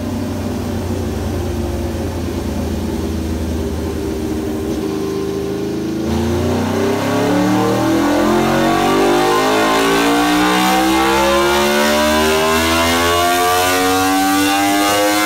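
Aprilia RSV4's V4 engine, with an SC Project titanium slip-on exhaust and no catalytic converter, running under full load on a chassis dyno. It holds fairly steady for about six seconds, then climbs smoothly and continuously in pitch as the revs rise through a power run.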